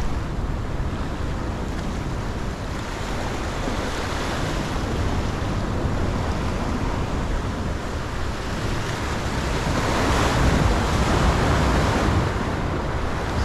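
Ocean surf washing and breaking against the rocks of a jetty, with wind buffeting the microphone; the surf swells louder about ten seconds in.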